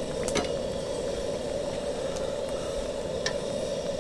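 Wild turkey meat frying in hot oil: a steady sizzle with a few sharp pops.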